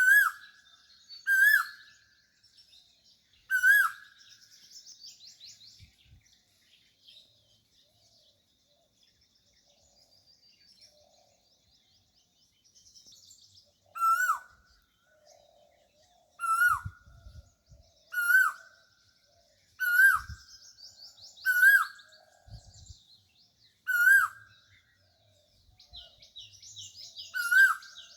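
Asian koel calling: a series of loud, short whistled notes, each rising then dropping, repeated every couple of seconds, with a pause of about ten seconds partway through. Other small birds chirp and trill faintly at a higher pitch behind it.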